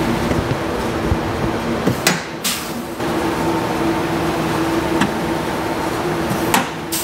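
Pneumatic rivet gun setting rivets into an aluminum trunk pan: a few sharp snaps, the loudest about two seconds in followed by a short hiss of air, over a steady shop hum.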